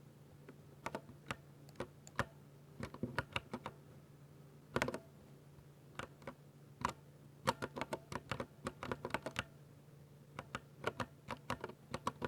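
Typing on a Ducky 60% mechanical keyboard with silver linear switches: sharp key strokes at an uneven pace in short runs. There is a quick cluster of strokes about five seconds in, and busier typing in the second half.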